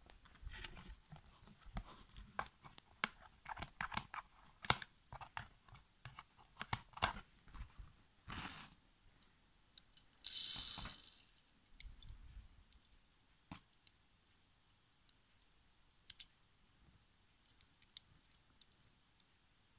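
Handling noise of die-cast toy cars and their cardboard packaging: a quick run of small clicks and taps for the first several seconds, a short rustle about ten seconds in, then only occasional clicks.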